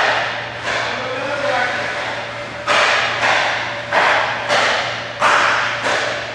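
Ice hockey shooting drill: sticks cracking against pucks and pucks banging into the boards and net, about eight sharp hits that echo in the rink, over a steady low hum.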